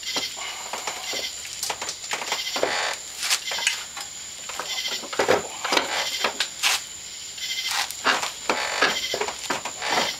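Metal clunks, knocks and scrapes as a Polaris Sportsman 550 transmission is tilted and pushed against the ATV frame and its mounts, mixed with a man's strained grunts of effort. A steady high-pitched tone runs underneath.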